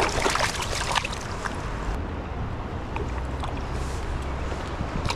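Fast, high-running stream water rushing, with wind rumbling on the microphone; a little louder in the first second.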